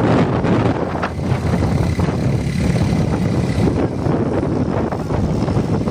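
Steady engine and wind noise of a road vehicle on the move, heard from on board.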